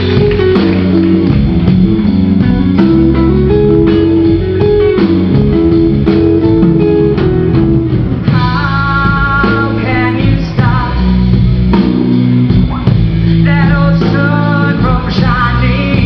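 Live blues and soul band playing a slow ballad: bass and drums under a lead melody line that wavers with vibrato from about halfway through.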